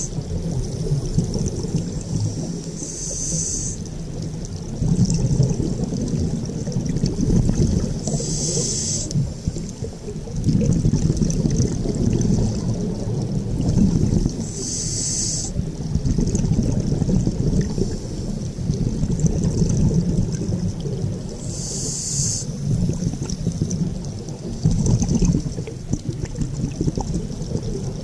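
Underwater scuba breathing: a short regulator hiss every several seconds over a continuous low bubbling rumble of water and exhaled bubbles.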